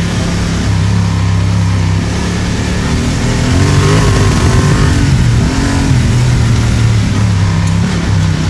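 Parallel-twin adventure motorcycle engine running under way off-road, its pitch rising and falling with the throttle over a steady rushing noise.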